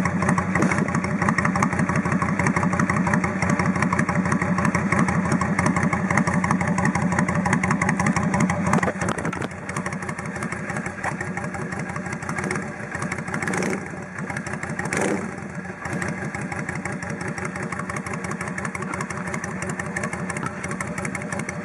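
Yamaha DragStar 400's air-cooled V-twin idling through a Marving slash-cut muffler with its inner silencer removed, effectively straight-piped, a loud steady stream of exhaust pulses. The level drops slightly about nine seconds in, with two brief swells a little later.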